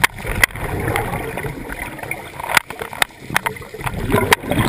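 Scuba diver exhaling through a regulator underwater, air bubbles bubbling and rushing out, with several sharp clicks. One long rush of bubbles in the first two seconds and another building near the end.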